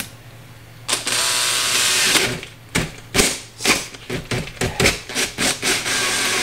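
Makita 18V cordless drill boring the button hole through a plastic trunk trim panel with the kit's drill bit. It starts about a second in and runs steadily for about a second, then runs in a string of short bursts, and runs steadily again near the end.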